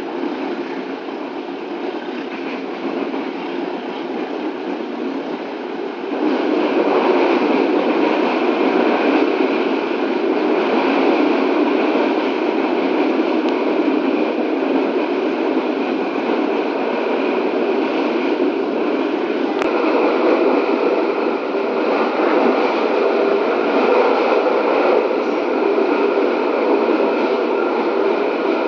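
Steady running noise of a moving passenger train heard from inside the coach, a dense rumbling rattle. It gets louder about six seconds in and stays at that level.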